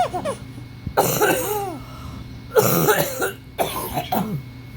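A woman coughing: two hard coughs about a second and a half apart, with a throat-clearing sound.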